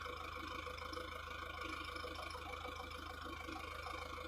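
An engine idling steadily, with a low, even, fast beat.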